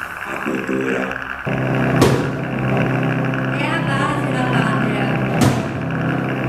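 Electronic sampler music: a steady low drone, with sharp hits about two seconds in and again about five seconds in, and a warbling, processed sample in the middle.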